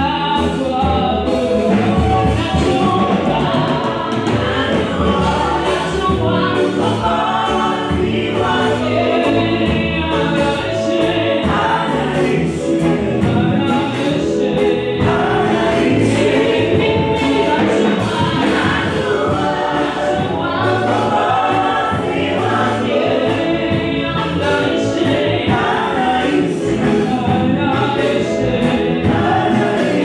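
Gospel choir singing, with a woman's voice leading into a microphone and the choir singing with her.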